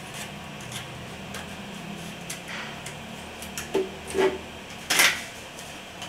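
Hands working the plastic case of a Synology DS1522+ NAS to open it: soft rubbing and small clicks, then a few sharper clicks and knocks in the second half.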